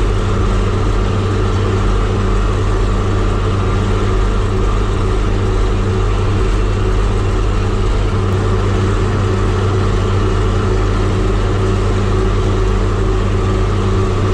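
Tractor engine running steadily at road speed while towing a hay baler, its drone holding an even pitch and level throughout.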